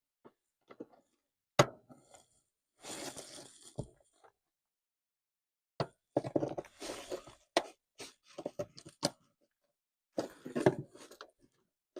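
Hands working car trim and clips loose: scattered sharp clicks and knocks, the loudest about a second and a half in, with stretches of scraping and rustling handling noise.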